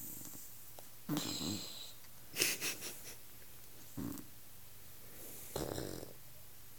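An elderly woman snoring in an odd, irregular way: four separate snores and wheezy snorts a second or two apart, the second broken into several quick pulses.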